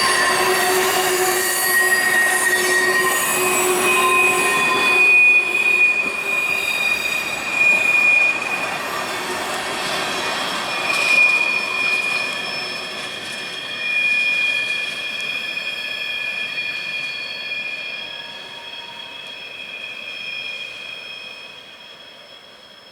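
Freight train cars rolling past, their steel wheels squealing against the rails in several steady high tones over a rolling rumble. The sound fades steadily over the last several seconds as the end of the train goes by.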